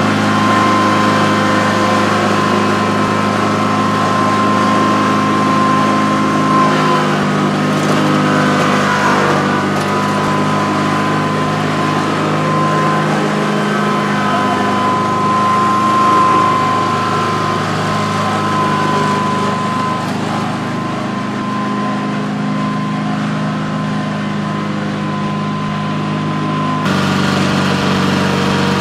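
Riding lawn tractor engine running steadily as it tows a loaded hand truck, its pitch dipping briefly about eight seconds in. Near the end the sound changes abruptly.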